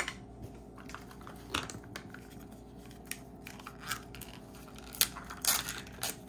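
Hands handling small plastic Mini Brands toy pieces: scattered light clicks and scrapes as a miniature box is set on a wooden shelf and a gold plastic capsule wedge is picked up and worked open, with a louder burst of scraping and peeling about five seconds in.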